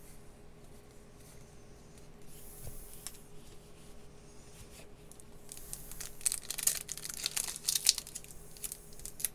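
Trading-card pack wrapper being torn open and crinkled by hand. From about halfway in there is a dense run of sharp crackles.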